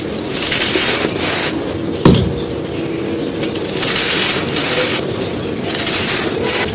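Dry moulded black sand shapes being crumbled, giving crisp gritty crunches in several bursts about a second long. A single sharp knock sounds about two seconds in.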